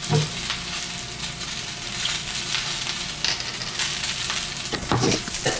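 Steamed kale sizzling steadily in a hot pan on a gas burner, with a few knocks near the start and again about five seconds in.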